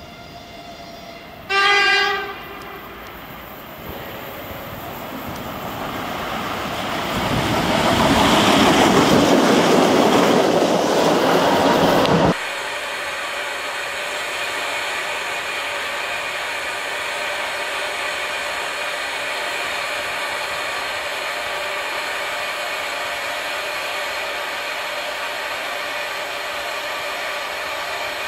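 A 2ES7 electric freight locomotive gives one short horn blast, then the noise of it coming closer and running past swells loud and cuts off suddenly. After that comes a steady whirring hum with several fixed tones from the locomotive's running equipment close by.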